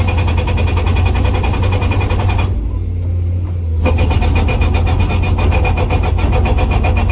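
Hydraulic breaker hammer on a PC200 excavator striking hard rock with rapid, evenly spaced blows over the excavator's running diesel engine. The hammering stops for about a second a little past the middle, leaving only the engine, then starts again.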